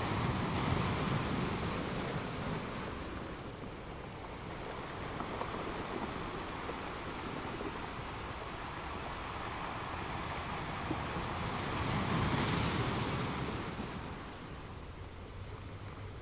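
Sea water washing and lapping, with wind buffeting the microphone; the rush swells louder about a second in and again around twelve seconds in.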